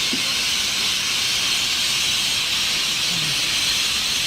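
Dense, continuous high-pitched chorus of a large flock of birds calling all at once at their roost as dusk falls, an even wall of sound with no single call standing out.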